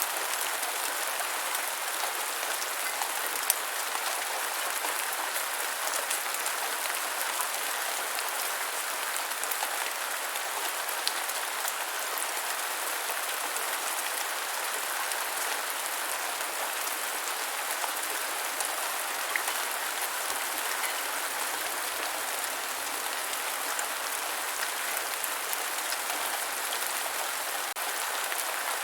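Steady rain falling on a hard surface: an even hiss of drops, with scattered sharper drop ticks standing out now and then.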